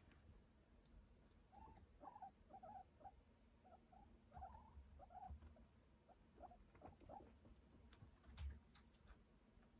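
Guinea pigs giving a string of short, soft squeaky calls, a dozen or so between about one and a half and seven seconds in. A soft low thump comes near the end.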